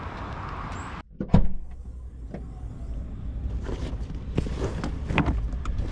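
A car door shuts with a loud thump about a second in. A car engine then runs with a low rumble, broken by several sharp clicks and knocks.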